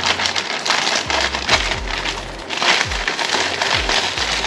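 Plastic courier mailer bag crinkling and crackling as it is cut open with scissors, with many quick clicks from the blades and the handled polythene.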